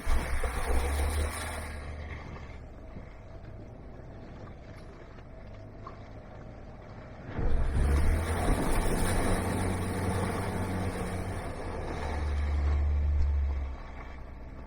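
Off-road vehicle engine pulling hard under load, with a broad rushing hiss over it, in two surges: a short one at the start and a longer one from about seven seconds in until near the end, with a lower steady drive in between.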